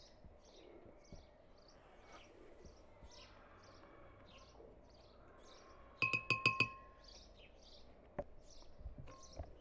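A metal spoon taps about five times in quick succession against a glass blender jar, each tap ringing, about six seconds in. A small bird chirps over and over in the background throughout.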